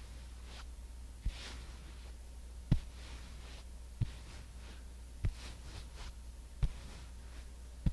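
Soft, evenly spaced pats on the microphone, six of them about 1.3 seconds apart, with faint brushing strokes in between, as in skin-care ASMR patting of the face. A steady low hum lies underneath.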